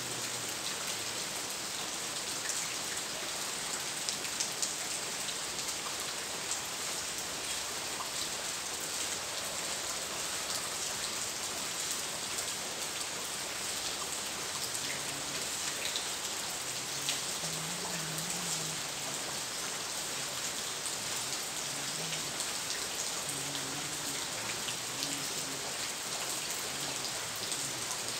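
Steady rain falling: an even hiss dotted with many small ticks of drops.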